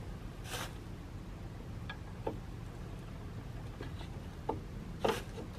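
A few faint, scattered clicks and taps from footsteps on dry ground and light handling at the grapple saw head, over a low, steady rumble.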